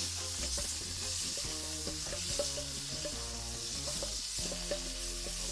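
Seasoning dropping into hot chicken fat in a cast-iron skillet, sizzling steadily, with a spoon scraping it out of a metal bowl.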